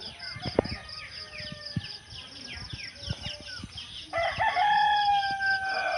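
A rooster crowing once, a long call that starts about four seconds in and drops in pitch at its end, over small birds chirping.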